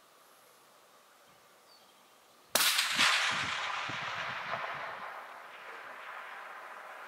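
A single shot from a suppressed Remington 700 in .308 Winchester, about two and a half seconds in. It is followed by a long rolling echo off the valley that fades over about four seconds.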